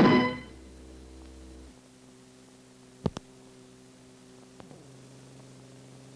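Music cuts off within the first half second, leaving a faint steady electrical hum in the background of an old film-to-video transfer. Two sharp clicks come about three seconds in and a softer click about a second and a half later.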